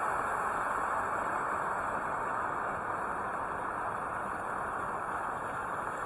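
Steady, even background noise with no distinct events or voices standing out.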